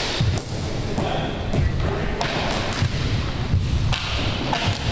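Floor-hockey sticks knocking a plastic ball and clacking on a wooden gym floor: irregular sharp knocks, one or two a second, echoing in a large gymnasium.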